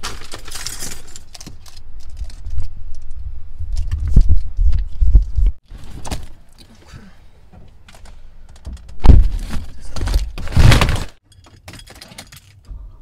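Handling noise on a handheld phone's microphone: rubbing and rumbling with scattered knocks and clatter, and two loud brushing thumps about nine and ten and a half seconds in.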